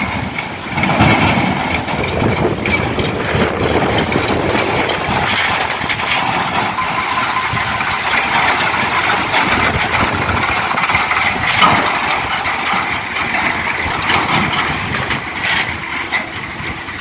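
Diesel farm tractor engine running as it pulls a loaded trailer past at close range, with a steady, slightly rising and falling engine sound.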